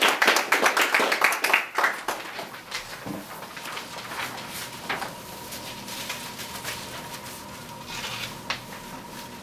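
Audience applauding, dying away about two seconds in. After that there is soft rustling and a few small knocks and creaks as the pianist settles onto the piano bench, with a faint steady high tone underneath.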